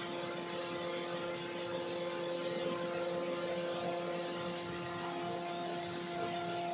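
Rotary screw air compressor running steadily under test: a continuous hum holding several constant pitches over an even rushing noise.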